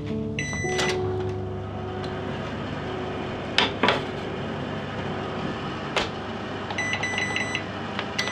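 Countertop oven being loaded and set: a few beeps from the oven just under a second in, two clattering knocks as the door is opened and the baking tray goes in, another knock as the door shuts, then a quick run of short keypad beeps as the temperature and timer are entered, over a steady low hum.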